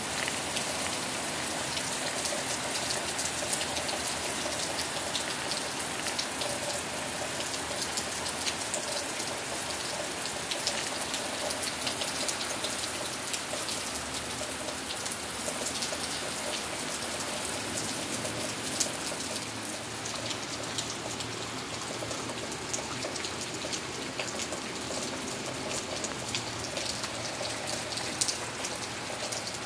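Steady heavy rain falling, with many individual drops ticking sharply close by.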